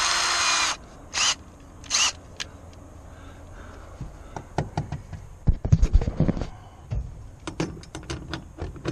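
Cordless drill whirring, stopping under a second in, then two short blips of the trigger. From about four seconds on come a run of knocks, clicks and scrapes as the long extension is worked onto a nut deep down in the compartment.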